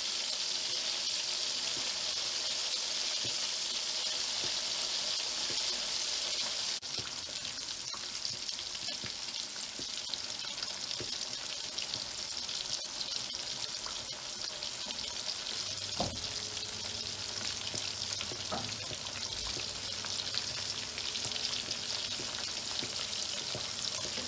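Batter-coated chicken strips deep-frying in hot oil over medium heat: a steady, even sizzle, with a couple of faint knocks past the middle.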